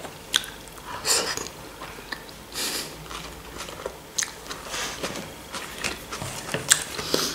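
Close-up chewing of a mouthful of fresh vegetable salad (cucumber, tomato and onion), wet mouth sounds with scattered sharp crunches.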